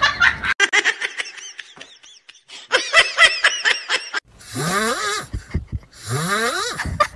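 Laughter: a quick run of short, bouncing bursts, then two longer, drawn-out wavering laughs.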